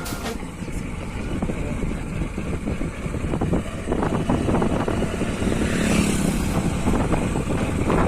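Honda SP125 motorcycle under way on a rough road, its single-cylinder engine running steadily under a dense noise of road and wind.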